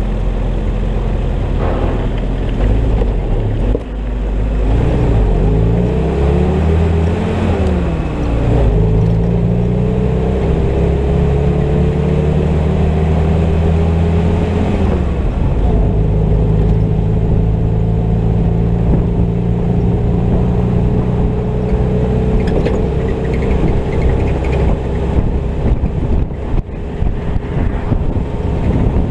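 Willys M38 jeep's four-cylinder flathead engine pulling the jeep along the road, rising in pitch as it accelerates, with gear changes about 4 and 15 seconds in, then running steadily at cruising speed.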